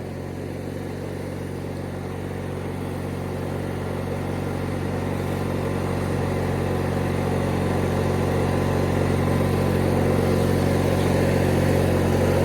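1997 MTD Yard Machines riding lawnmower engine running steadily at an even pitch, growing gradually louder.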